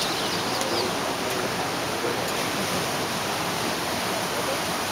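Steady, even rushing of running water, unbroken throughout.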